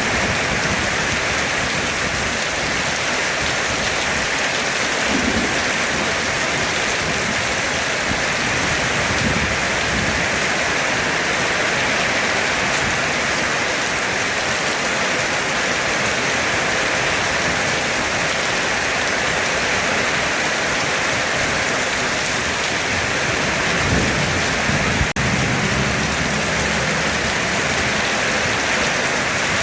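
Heavy rain falling steadily in a dense, even hiss. Low rumbles of thunder come through about five seconds in and again near the end, the later one with a short sharp crack.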